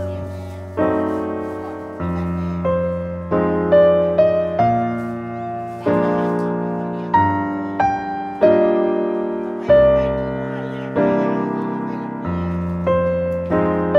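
Background piano music: gentle chords and melody notes struck about once a second, each ringing and fading before the next.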